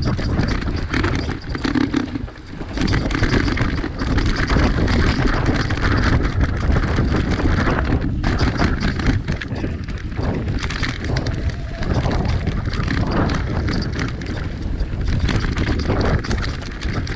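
Mountain bike riding fast down a dirt trail: the tyres rolling over rough ground and the bike rattling over bumps with many small knocks, under a steady rushing noise.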